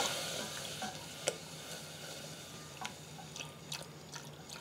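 Silicone-coated whisk stirring roux and milk in a stainless steel saucepan, with scattered light clicks and scrapes of the whisk against the pan. A soft sizzle of the hot roux fades out over the first second as the cold milk goes in.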